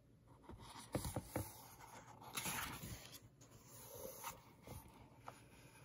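A book page being turned by hand: a few soft taps, then quiet paper sliding and rustling as the new page is laid down and smoothed flat.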